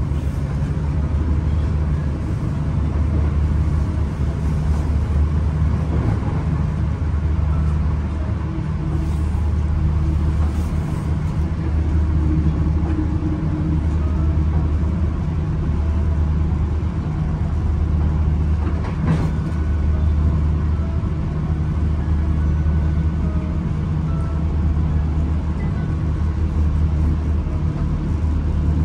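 Steady low rumble of a diesel commuter train running along the line, heard from inside the carriage, with one brief click about nineteen seconds in.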